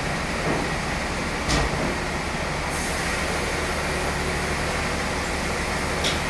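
Sawmill machinery running steadily with a low hum, with a short knock about a second and a half in and another near the end.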